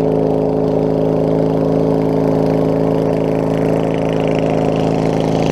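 Single-cylinder engine of a Craftsman riding lawn mower running steadily at idle.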